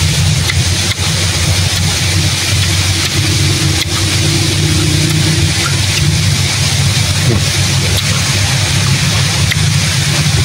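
A steady, loud low rumble with an even hiss over it, and a few faint clicks.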